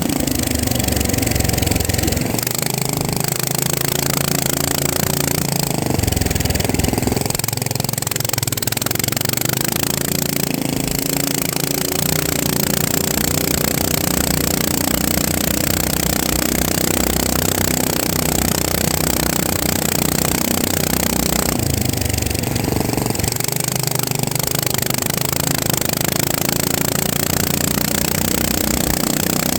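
FPV racing drone's electric motors and propellers buzzing steadily, the tone shifting now and then as the throttle changes.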